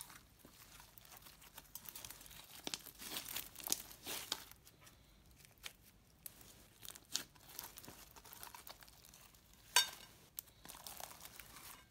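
Slime full of beads being squished, stretched and pressed by hand in a glass bowl: sticky crackling and irregular small pops, with one sharper click near the end.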